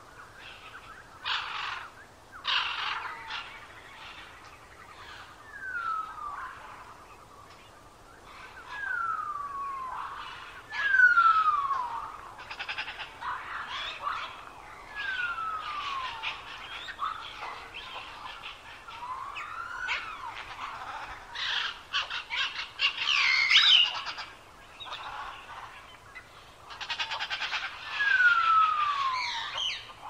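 Northern cardinal singing: clear whistled notes that slur downward, one every couple of seconds, with runs of fast repeated notes in the second half.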